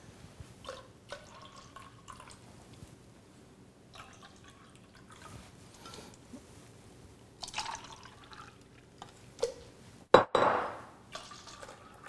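Ionized alkaline water poured in short, faint trickles from a small plastic cup into other plastic cups, several pours one after another. A sharp knock a little after ten seconds is the loudest sound.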